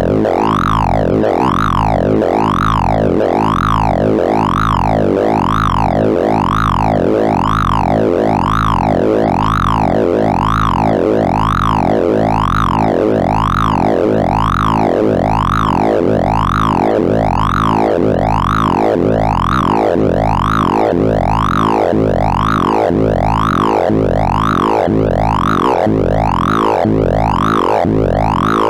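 Synthesized sine-like beeps from the Sound of Sorting program, which sonifies array accesses of a random sort as tones whose pitch follows the values being compared. The pitch sweeps up and then down over and over, about once every 1.3 seconds, over a steady cluster of lower tones.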